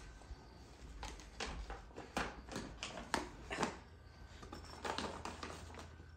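Paper gift bag rustling and crinkling in irregular bursts as a cat paws at it and pushes into it.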